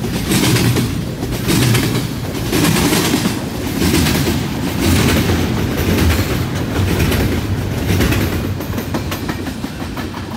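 Double-stack container well cars of a freight train rolling past, their wheels clattering over the track in a regular clickety-clack beat. The sound fades over the last couple of seconds as the last cars move away.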